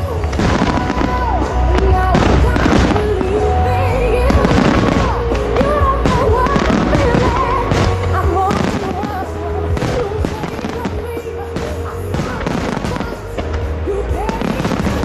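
Aerial fireworks going off in quick succession, a dense run of bangs and crackles over a low rumble, with music playing alongside.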